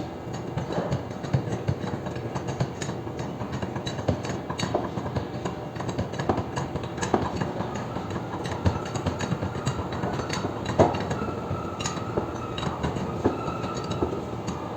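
Roller coaster train rolling along its steel track, with irregular clattering and knocking. A steady whine joins in near the end.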